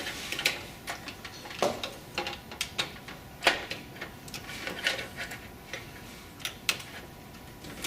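Irregular light clicks and taps of SATA data and power cable connectors being handled and plugged into a hard drive.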